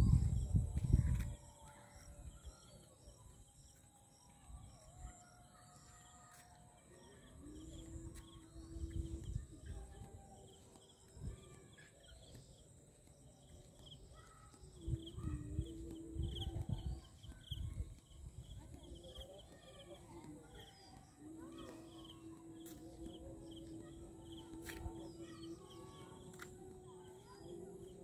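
Evening insect chorus of rhythmic high chirps over a steady high drone. Bursts of low rumble on the microphone come near the start, in the middle, and again a little later, and a steady low hum comes and goes in the second half.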